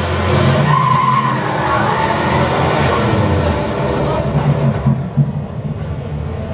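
Demo soundtrack playing through a Panasonic JZ2000 television's built-in speakers: loud action sound effects with a deep rumble and rushing noise, easing off about two-thirds of the way through.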